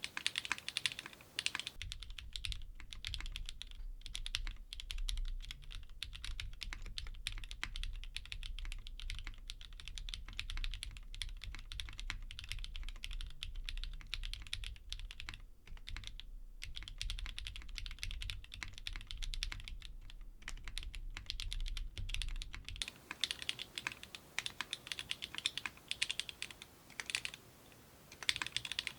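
Steady fast typing on custom mechanical keyboards with clacky linear switches, a dense run of keystrokes. About two seconds in the sound turns deeper and duller as a different board is typed on, then about 23 seconds in it switches back to a brighter, sharper clack.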